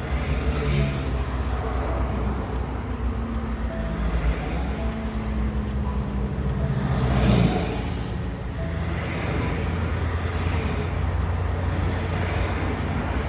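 Highway traffic: a steady low rumble of tyres and engines, with vehicles passing one after another, the loudest about seven seconds in. A low engine hum, as of a truck, holds and shifts in pitch beneath them.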